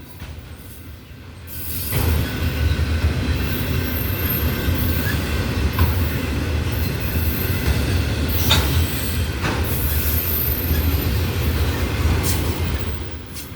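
Freight train rail cars rolling past: a steady low rumble of wheels on rail, with a faint high wheel squeal and a couple of sharp clanks a little past the middle.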